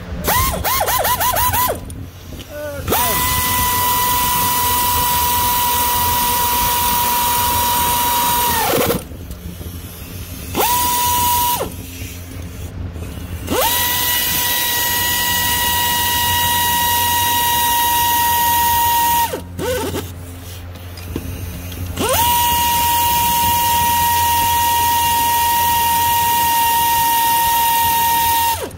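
Pneumatic air ratchet whining as it spins. First a few quick trigger blips, then three long runs of about six seconds each and one short one. Each run rises in pitch as the tool spins up and falls away as it is released.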